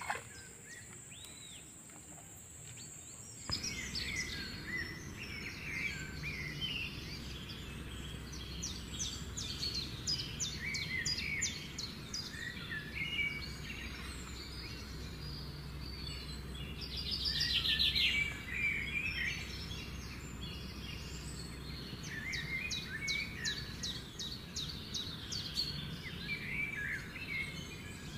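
Birds calling and chirping in the trees, with quick repeated trills and short whistled notes, starting about three and a half seconds in. About halfway through, one louder, rapid chattering call stands out. A steady low hum runs underneath.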